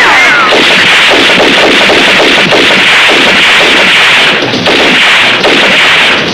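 Sustained rapid gunfire, a loud continuous crackling volley with two brief breaks a little after four and five seconds in.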